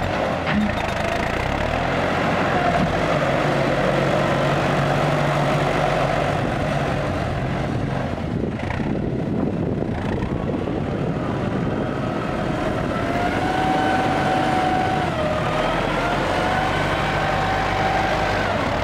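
A CLAAS Talos 240 tractor's diesel engine running steadily under load as it pushes and works soil. In the second half a whine rises and falls in pitch over the engine drone.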